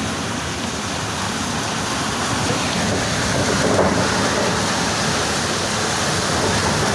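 Strong wind of a passing tornado blowing steadily, a dense even rush of noise buffeting the microphone.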